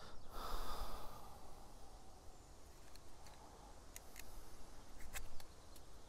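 Knife blade shaving slivers off a thin wooden stick: faint scraping, with several short sharp clicks of the cuts from about four seconds in.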